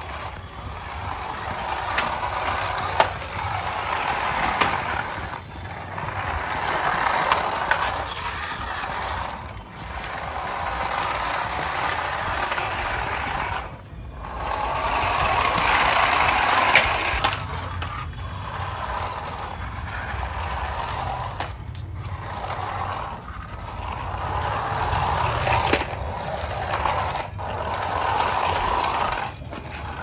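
Toy remote-control cars driving on rough concrete: a rasping rolling noise of their small wheels and gear motors that swells and falls every few seconds, with a few sharp clicks.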